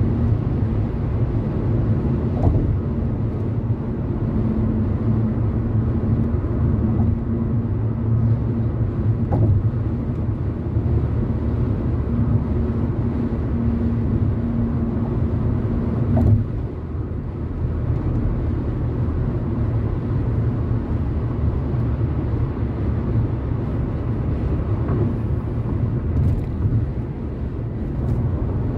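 Car driving at freeway speed, heard from inside the cabin: a steady low rumble of tyre and road noise. A droning hum runs over it and stops suddenly a little past halfway through.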